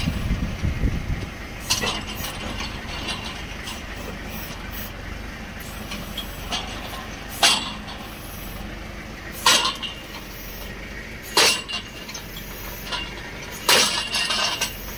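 Sharp metallic clinks of steel striking steel at the drill-pipe clamp of a borewell drilling rig, five of them spaced a couple of seconds apart, over the steady running of the rig's engine.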